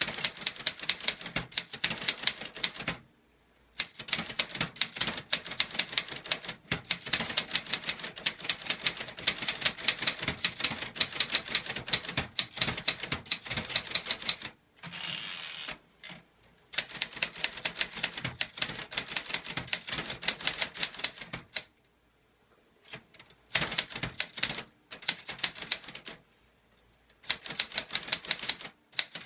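Clover Top Star 10S Korean typewriter being typed on with no ink ribbon fitted, the type striking the platen directly: quick runs of sharp clacks, several a second, broken by short pauses.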